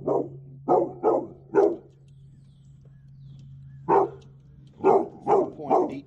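Dog barking at a stranger, in two runs of about four barks each with a pause of two seconds between them. A steady low hum underneath stops about five seconds in.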